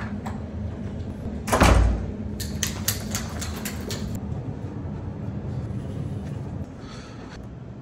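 A heavy hotel room door shuts with a deep thump about one and a half seconds in. A quick run of light clicks follows for about two seconds, then footsteps go off down the hallway over a steady low hum.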